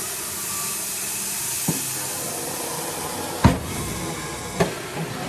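A steady hiss with three sharp knocks over it, the loudest about three and a half seconds in.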